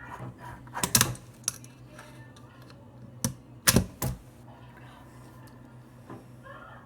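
Fingerboard clacking on an obstacle: a handful of sharp taps and clacks as tricks are popped, slid and landed. The loudest clacks come about a second in and near four seconds in, over a low steady hum.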